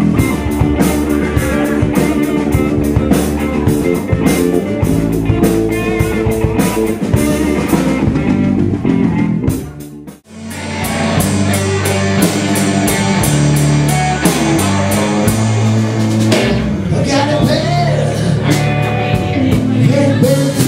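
Live rock band playing with electric guitar and drum kit. About ten seconds in the music fades out sharply and another song picks up, with singing in the later part.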